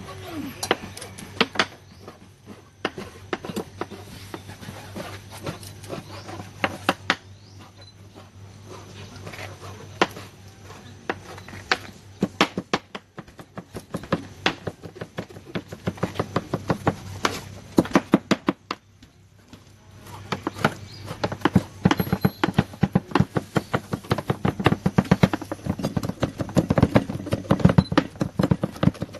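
Kitchen knife chopping on a cutting board: repeated quick strikes, irregular at first, then a fast, steady run of chops in the last third.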